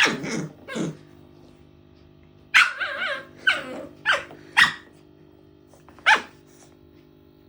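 Puppy barking in short sharp barks during play: a couple at the start, then a run of barks from under three seconds in to about six seconds, over a faint steady hum.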